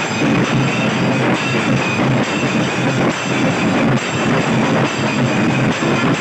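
A group of barrel drums struck with sticks, all playing together in a loud, fast, dense beat with no break.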